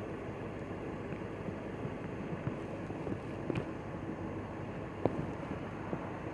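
Steady roadside noise of traffic and wind on a body-worn camera's microphone, with a few faint clicks.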